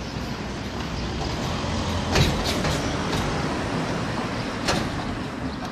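A motor vehicle's engine running steadily, with two sharp knocks, one about two seconds in and one near the end.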